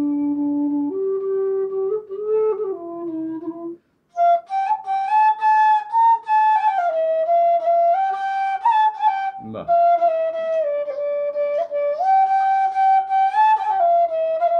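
Bass bansuri in F, a bamboo transverse flute, played in a slow melodic phrase. First comes a few low held notes, then a short breath pause about four seconds in. A breathy phrase follows about an octave higher, with another brief break near the ten-second mark.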